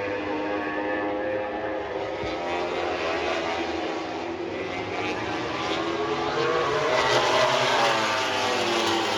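Engine drone with several pitches sounding together, swelling and sliding in pitch about seven to eight seconds in as the source passes.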